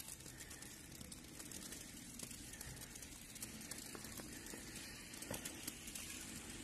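Faint, steady outdoor hiss with scattered light ticks and crackles during heavy snowfall, typical of wet snow coming down.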